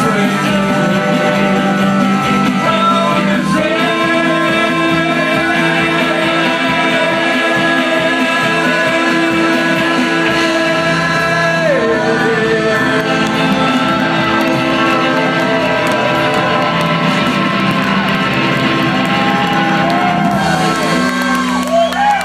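Live band playing a rock and roll song: sung vocals over electric guitar, upright bass, drums and keyboard, with long held sung notes in the middle. Near the end the song finishes and the crowd starts to whoop and cheer.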